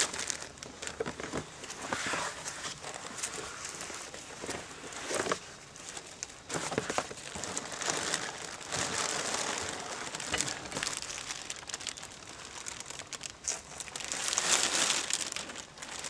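Plastic wrap and packing sheets crinkling and rustling as they are handled and pulled out of a cardboard box, with irregular crackles throughout and the loudest crinkling a little before the end.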